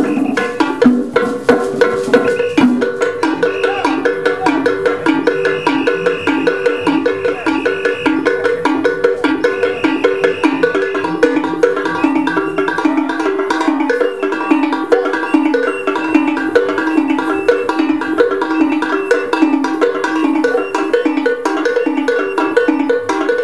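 Live African percussion music: a fast, repeating melody struck on pitched wooden mallet percussion, with drum strokes underneath.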